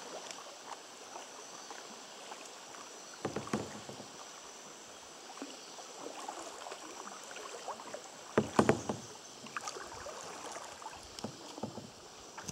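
Kayak paddling: a double-bladed paddle dipping and splashing in river water with a steady wash of moving water. There are two louder splashy bursts, one about three and a half seconds in and the loudest around two-thirds of the way through.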